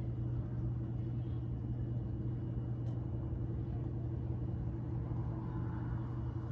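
Steady low rumble and hum of a vehicle engine running, unchanging throughout.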